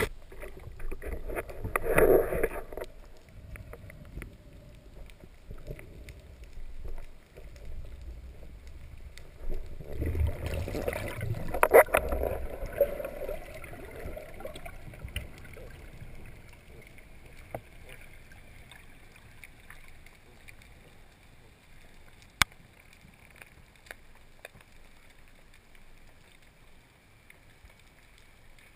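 Water sloshing and rushing around a spearfisher as he moves at the surface and dives, in two louder spells near the start and about a third of the way in. It then settles into a quiet underwater hiss with a few isolated sharp clicks, muffled as heard through an underwater camera.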